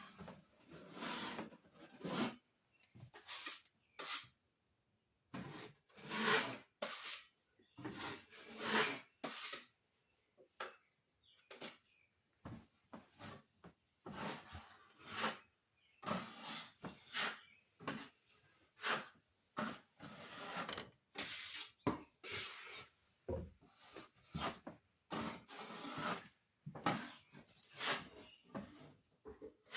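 Hand scraping and rubbing on a wall surface in short, irregular strokes with brief pauses between them, as in wall patching with a putty knife or sanding.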